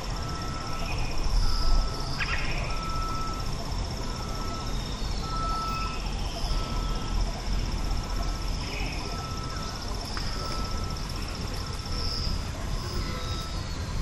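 Countryside ambience: insects keep up a steady high trill that swells now and then, while a bird repeats one short note about once a second and gives a few brief chirps. Wind rumbles on the microphone underneath, strongest a second or two in, and there are two faint clicks.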